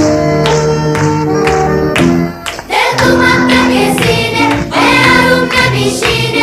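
Background song: held instrumental notes, then after a short break about halfway through, singing voices come in over the music.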